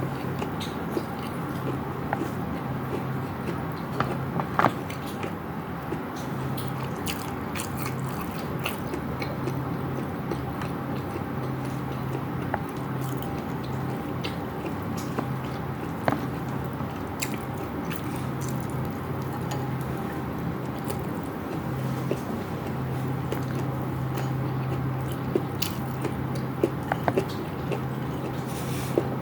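Close-up eating sounds: a person biting and chewing food, with many small, sharp mouth clicks scattered throughout, over a steady low hum.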